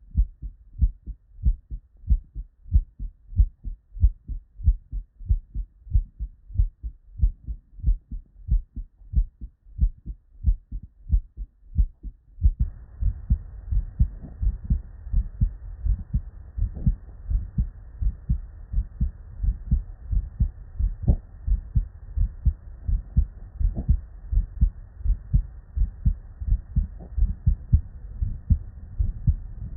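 Normal human heart sounds heard through a stethoscope: steady, regular S1 and S2 "lub-dub" beats. About halfway through it switches to a different recording, with more background hiss under the beats.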